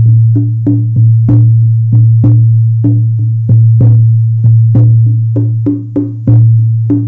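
A 14-inch buffalo-skin frame drum on an ash frame, beaten with a soft beater in a steady beat of about two to three strokes a second. A deep, booming tone rings on between the strokes.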